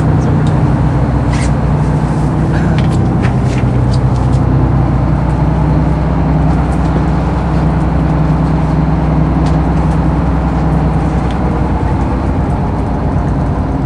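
Fishing boat's engine running steadily, a constant low drone, with a few light clicks and knocks in the first few seconds.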